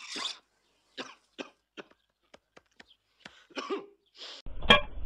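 A man coughing and clearing his throat in short, dry bursts with small clicks in between. Near the end a louder low hum cuts in.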